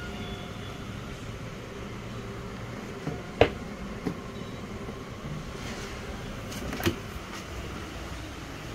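Plastic body panels of an electric scooter being handled and fitted: a few sharp knocks and clicks, the loudest about three and a half seconds in, over steady background noise.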